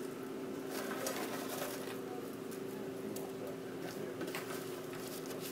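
Homemade croutons rustling and clicking faintly as they are picked from a plastic tub and dropped onto salad plates, over a steady low hum.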